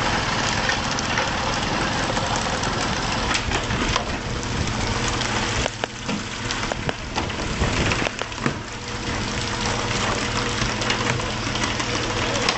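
Fishing boat's engine running steadily under a hiss of water spray and splashing, with a few sharp knocks in the middle.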